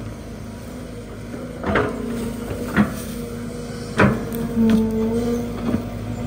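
Hydraulic excavator digging out a tree stump: the engine and hydraulic pump run with a steady whine that swells briefly about two-thirds in as it works under load. The steel bucket gives about five sharp clanks and knocks as it bites into the ground.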